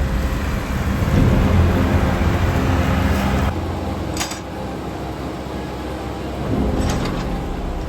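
John Deere 6130R tractor's engine running steadily while baling straw with a McHale round baler. It becomes somewhat quieter about three and a half seconds in, and there are two brief clicks, about four and seven seconds in.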